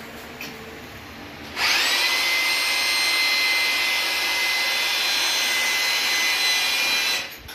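Electric power drill running steadily for about five and a half seconds: it spins up quickly about a second and a half in, holds a steady high whine over a hiss, and stops near the end. It runs in plain rotary mode, with no hammering.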